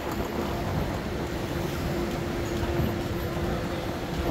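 Street noise: a continuous low rumble of traffic with a steady hum running through it.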